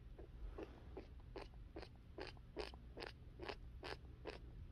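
A run of faint, evenly spaced crunches, about two to three a second, building to their loudest midway and then easing off.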